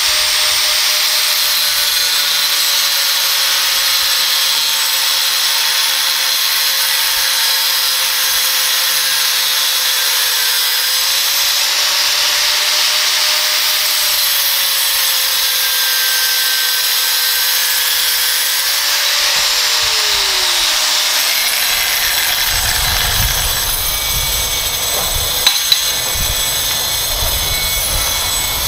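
Angle grinders cutting steel, one fitted with a Graff Black diamond cut-off wheel and one with an abrasive cut-off wheel: a steady motor whine over the hiss of the wheel grinding through the metal. About two-thirds of the way in, one grinder's whine falls away as it spins down, while the other keeps cutting with a lower rumble and two sharp clicks near the end.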